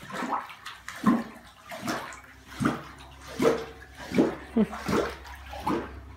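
Rainwater sloshing and splashing across a flooded tile floor as a floor squeegee pushes it along, in a series of short sloshes.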